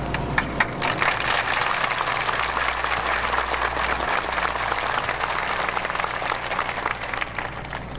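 Large crowd applauding: a few separate claps at first, quickly filling in to dense, steady clapping that thins slightly near the end.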